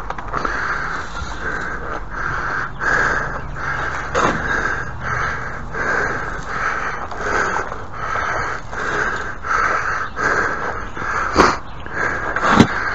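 Rhythmic rasping strokes, about two a second, broken by a few sharp knocks, the loudest near the end.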